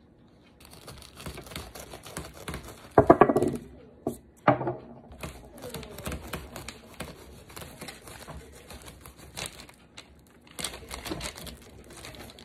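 Kitchen knife sawing through a ripe jackfruit's thick, spiky rind and fibrous flesh: a dense run of small clicks and scrapes, with two louder ones about three and four and a half seconds in.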